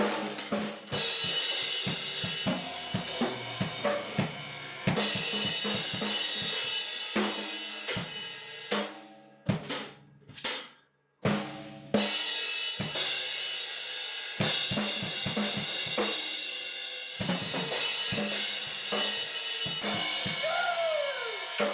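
Drum kit played hard in loose, irregular fills, with snare and bass-drum hits under a wash of crashing cymbals. It breaks off for a moment about halfway through, then starts again.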